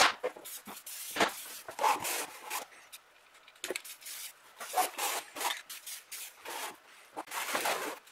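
Aerosol spray paint can hissing in a quick string of short, irregular bursts, the first one the loudest.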